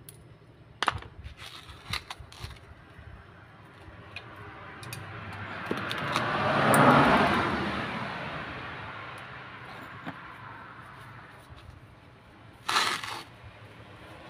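Light metal clinks of hand tools working at the base of a hydraulic bottle jack being taken apart. Then a rushing noise swells to its loudest about halfway through and fades away, and a short loud clatter comes near the end.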